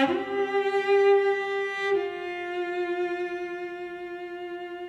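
Background music of slow, sustained bowed-string notes, moving to a new held note about two seconds in and slowly growing quieter.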